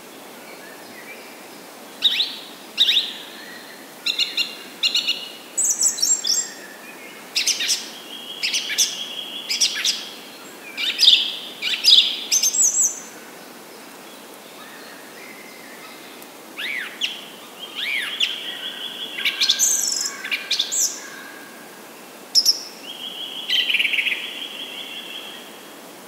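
Songbirds chirping and singing in quick clusters of short, high whistled notes, with a lull of a couple of seconds near the middle, over a steady background hiss.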